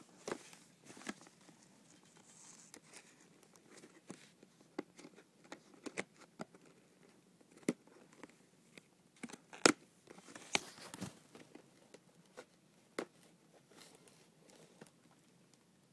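Retail packaging of a wireless mouse being worked open: irregular crinkling, tearing and sharp clicks, the loudest a little before ten seconds in. The packaging is tricky and hard to open.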